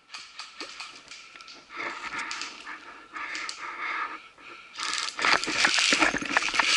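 Quiet shuffling and rustling, then from about five seconds in a person breaking into a run: quick irregular footsteps crunching on dry leaf litter and twigs, with gear rattling.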